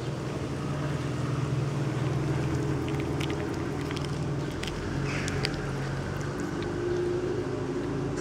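A steady low motor hum, with a few faint short clicks of a cat chewing boiled fish scattered over the middle of the stretch.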